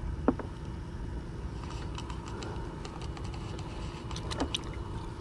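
Small scattered clicks and taps while a hand rummages in a bucket of bait and handles a hook and line, over a steady low rumble.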